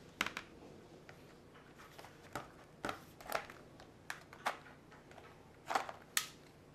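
Irregular plastic clicks and knocks from a netbook being handled as its battery latch is slid and the battery is pulled out, about eight short clicks spread over several seconds.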